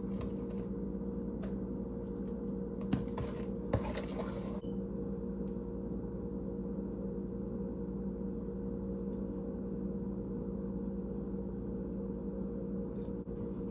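Electric mixer running steadily with a constant motor hum while it beats the egg, sugar and butter mixture for cookie dough. A few brief knocks come about three to four seconds in.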